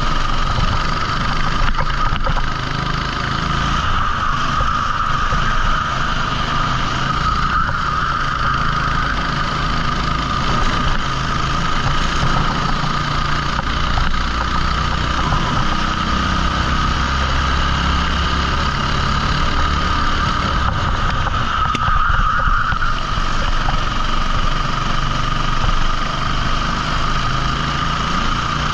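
14 hp rental kart engine running under racing load, its pitch shifting up and down with the throttle.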